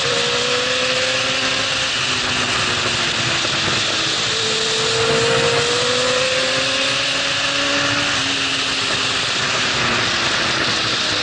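Yamaha R6 inline-four engine with a Termignoni full exhaust, heard from on board at high revs, its pitch climbing slowly twice as the bike accelerates, over heavy wind rush.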